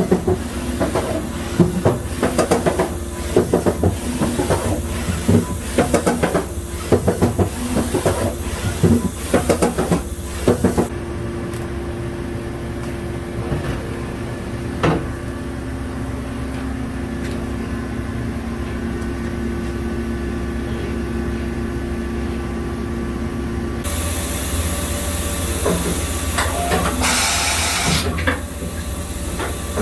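Kitamura 2XiF vertical CNC machining center running. For the first third there is a rapid, irregular clatter of clicks and knocks over a steady hum. Then the machine settles into a steady hum with a few held whine tones and a single click. A loud hiss sounds for several seconds near the end.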